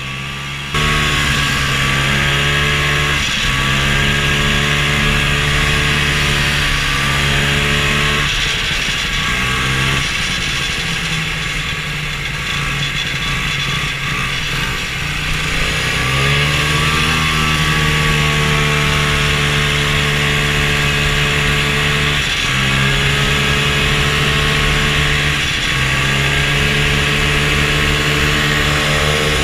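Old snowmobile engine running under way, heard from on board, its pitch rising and falling repeatedly with the throttle over a steady hiss.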